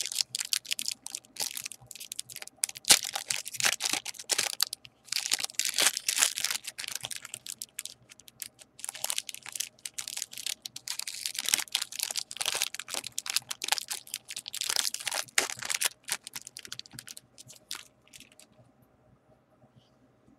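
Foil wrapper of a baseball trading-card pack being torn open and crinkled in the hands, crackling in quick irregular bursts that die away near the end.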